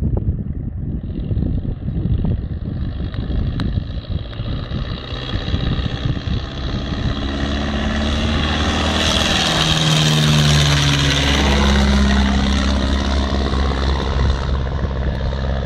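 De Havilland Tiger Moth biplane flying low past, its four-cylinder engine and propeller growing louder as it approaches. The pitch drops as it goes by about two-thirds of the way through, over wind buffeting the microphone.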